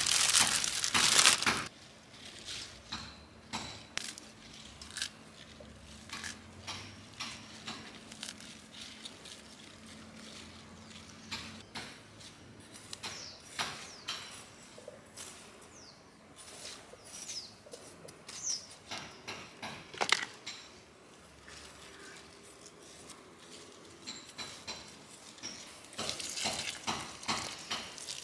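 Loud crinkling of a plastic plant bag as a basil plant is pulled from it, then soft scattered scrapes and pats as a metal kitchen spoon and hands work loose garden soil. About two seconds before the end, water from a garden hose starts splashing steadily onto the soil.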